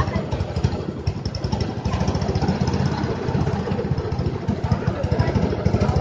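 Small engine of a children's ride-on amusement car running, a fast, even putter.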